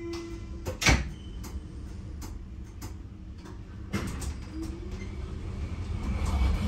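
Berlin U-Bahn F-type train at a platform: a steady tone stops just after the start, then the sliding doors shut with a loud thump a little under a second in. About four seconds in, after a sharp click, the train starts moving and its low running noise grows steadily louder.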